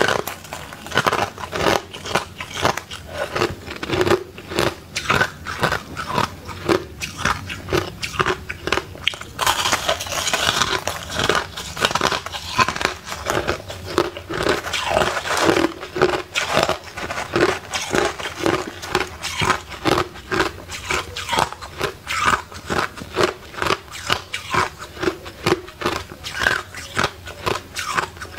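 Crushed ice being bitten and chewed: a continuous run of sharp, crisp crunches, two or three a second.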